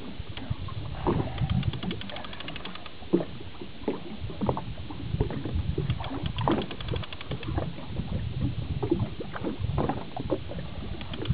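Water slapping and sloshing against the hull of a small fishing boat at sea, with irregular knocks and bumps and a steady low rumble.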